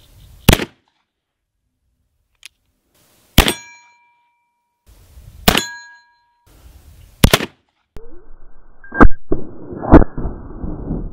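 Cimarron 1860 Army .44-calibre cap-and-ball revolver fired six times, the shots one to three seconds apart. After the second and third shots a struck steel plate target rings out with a sustained ding.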